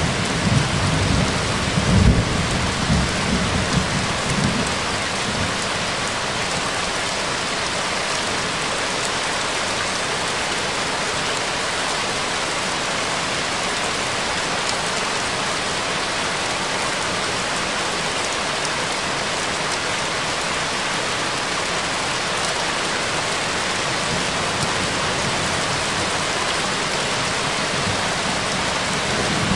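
Steady rain, with a low rumble of thunder over the first four or five seconds that then dies away.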